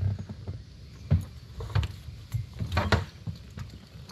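Irregular knocks and thumps of fishing gear being handled in a boat, the sharpest about a second in and near three seconds in.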